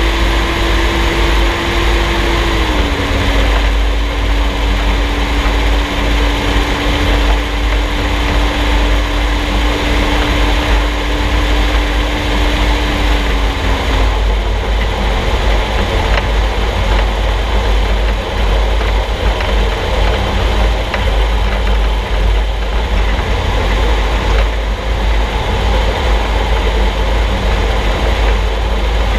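Road noise of a vehicle driving, heard from beneath it at the front axle: a heavy, steady low rumble with tyre and drivetrain noise. A steady hum runs through it, drops slightly in pitch about three seconds in and fades out about halfway through.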